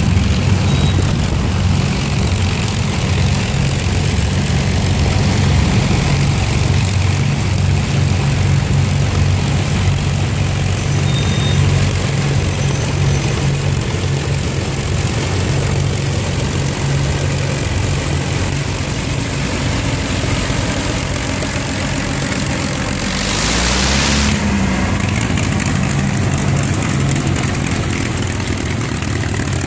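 Avro Lancaster bomber taxiing with its four Merlin V12 engines running at low power, a steady deep drone. About three-quarters of the way through, a brief rush of wind-like noise comes in as the aircraft passes close, and the engine pitch dips and rises.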